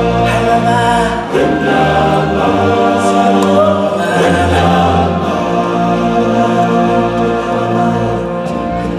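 Choir of stage-musical singers holding long chords over a low bass line.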